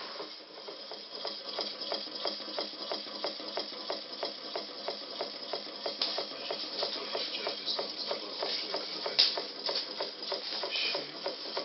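Small homemade gamma Stirling engine running, its mechanism ticking in a steady rhythm of about four clicks a second as the CD flywheel turns, with one sharper click about nine seconds in.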